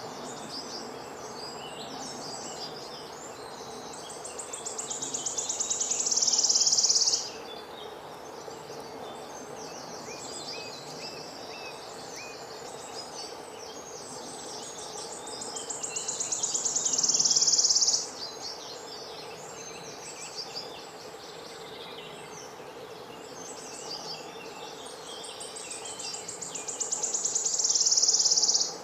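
Wild birds chirping and calling, with a high, fast-pulsing buzzing call that swells louder over about three seconds and then stops abruptly; this happens three times, roughly every eleven seconds.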